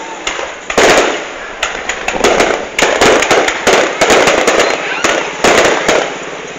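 Fireworks going off in rapid succession: many sharp bangs and crackles each second, swelling and easing in waves.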